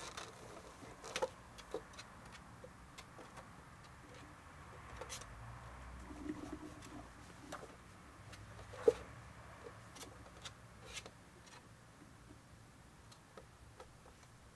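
Scattered light clicks and taps of a kitten's claws and paws on the hard plastic platform of a pet scale as it is steadied by hand and walks across it, with one sharper knock about nine seconds in.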